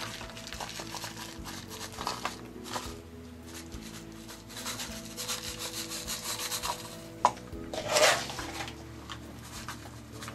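Coarse sifted grit sprinkled and shaken from a paper cup onto a plaster rock casting, making an irregular gritty rattle and scrape. There is a sharp tick about seven seconds in, then a brief louder rush of grains.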